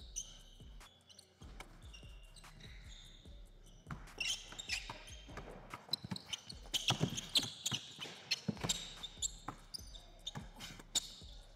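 A basketball dribbled on a hardwood gym floor, a run of bounces, with sneakers squeaking on the court in a busier, louder stretch from about four to nine seconds in as the ball-handler drives.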